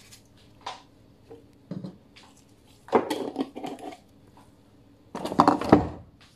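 Kitchen handling sounds from a large glass storage jar of brown sugar: a few light clicks and scrapes, a clatter of glass about three seconds in, then a louder clatter with a dull knock from about five seconds in as it is set down.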